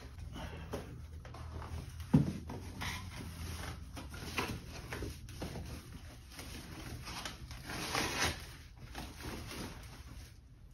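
Packing paper rustling and crinkling in a cardboard guitar box, in irregular bursts as it is handled and pulled back. A single dull thump about two seconds in is the loudest sound.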